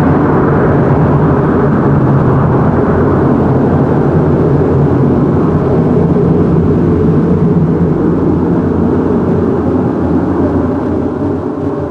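Loud, steady ambient drone from the electronic soundtrack: a sustained low chord under a rushing noise wash, easing down slightly near the end.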